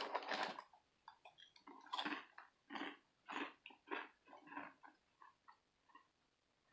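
A person chewing Cheez-It Cheese Pizza crackers with the mouth close to the microphone: a run of dry crunches, about two a second, thinning out near the end.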